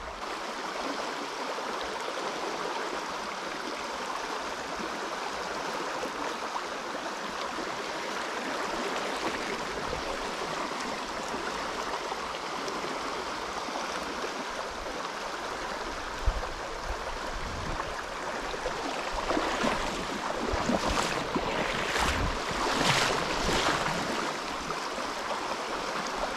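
Shallow river rushing steadily over a gravel riffle. In the last several seconds the rush swells unevenly, with a few sharp knocks.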